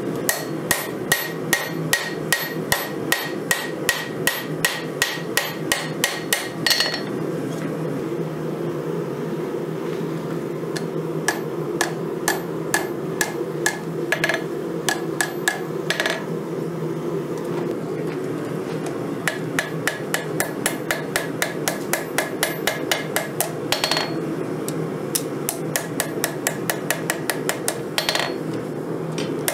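Hand hammer forging a red-hot 5160 steel knife blade on an anvil: quick runs of ringing blows, about three or four a second, broken by a pause of some ten seconds with only a few scattered strikes. A steady low hum runs underneath.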